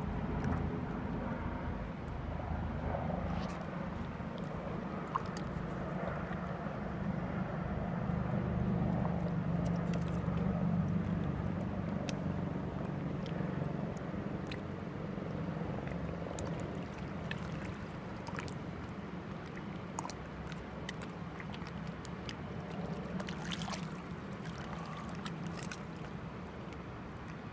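A distant engine's low, steady drone, swelling to its loudest about ten seconds in and slowly easing off, with a few faint light clicks over it.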